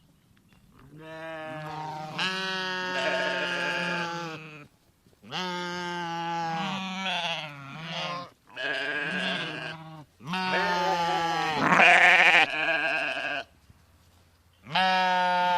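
A flock of sheep bleating: about five long bleats in a row with short pauses between, some voices overlapping.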